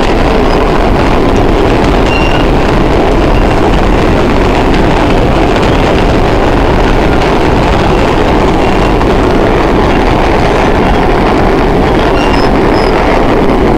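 Vintage subway train running at speed through a tunnel, heard from inside the car: a loud, steady rumble of wheels on rails. A few faint, brief squeals come and go.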